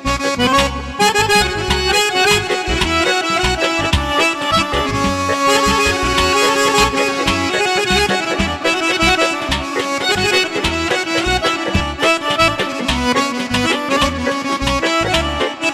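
Azerbaijani garmon (diatonic button accordion) playing a folk melody, with a steady drum beat underneath.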